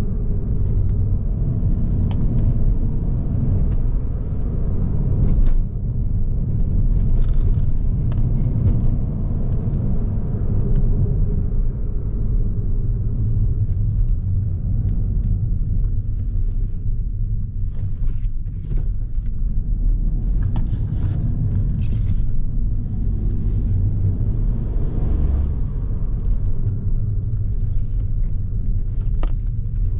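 2022 Ford Focus with the 1.0 EcoBoost mild-hybrid three-cylinder engine, driving: a steady low rumble of engine and road, with a few faint clicks.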